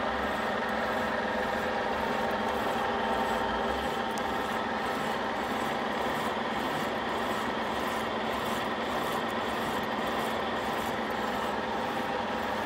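Radial drill running steadily while its spindle turns a boring head with a high-speed steel bit through a pin hole. The machine gives an even whine of several steady tones that does not change.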